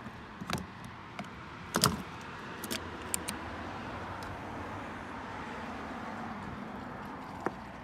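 Fuel pumping through a gas-pump nozzle into a car's filler neck, a steady hiss. A sharp clack comes about two seconds in, with a few lighter clicks around it and one near the end.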